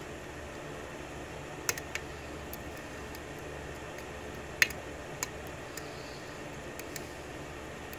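Small, sharp metallic clicks of a steel pick working the pins inside a brass 6-pin KIK pin-tumbler cylinder during single-pin picking, scattered irregularly with the loudest click about halfway through, over a steady background hiss.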